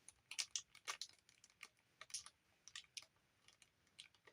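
Faint, irregular small clicks and taps from a small statue and its parts being handled.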